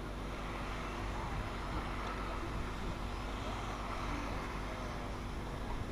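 Electric motors of radio-controlled racing trucks whining round the track, faintly rising and falling in pitch with the throttle, over a steady hiss.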